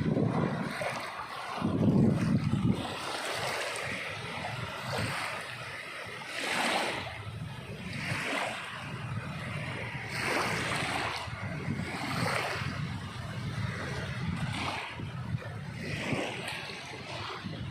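Sea waves washing in and breaking, swelling and falling back every few seconds, the strongest surge about two seconds in.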